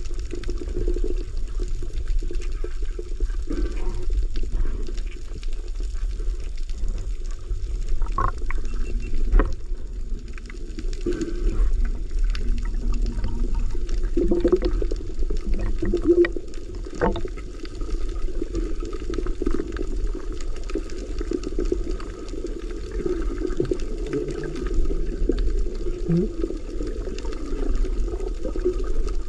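Underwater ambience heard through a submerged camera: a steady low rumble and muffled water noise, with a few sharp clicks.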